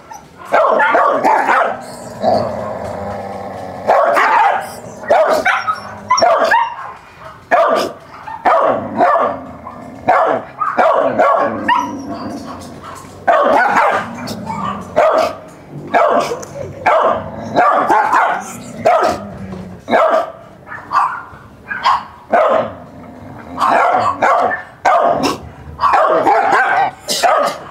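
A dog barking over and over, short barks coming about once or twice a second, with one longer drawn-out call a few seconds in.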